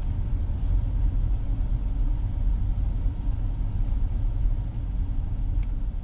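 Low, steady rumble of a Ford EcoSport being driven along a snow-packed road, heard from inside the cabin: engine and road noise.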